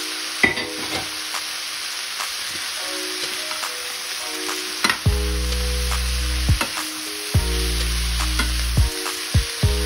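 Sliced bell peppers sizzling in oil in a frying pan as a metal spatula stirs them, with scattered clicks and scrapes of the utensil against the pan. Background music with held chords underneath, and a deep bass line coming in about halfway through.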